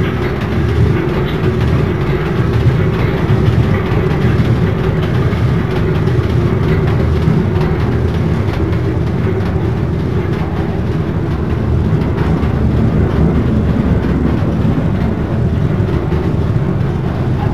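A screw conveyor running empty, its helical flight turning on the shaft in an open steel trough. It gives a loud, steady low drone with a hum and a light continuous rattle.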